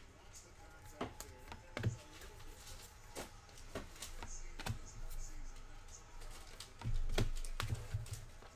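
Baseball trading cards being flipped through by hand: a scattered run of light clicks and taps as cards slide and snap against the stack. A louder low rumble comes in about seven seconds in.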